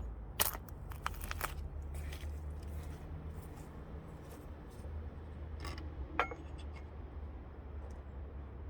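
A handful of sharp clicks and clinks of small hard objects being handled, the loudest about half a second in, over a steady low hum.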